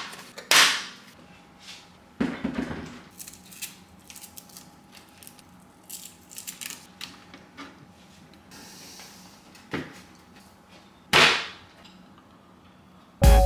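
Scattered light clicks, knocks and rustles of hands handling cables and components in a PC case. A few short rustling bursts stand out. Electronic music starts just before the end.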